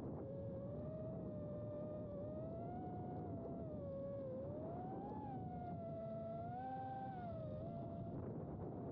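Emax Babyhawk 2 HD FPV quad's brushless motors and propellers whining in flight. The pitch climbs, dips about four seconds in, peaks just after five seconds, holds higher, then drops back near the end as the throttle changes. Underneath is a steady rush of wind noise.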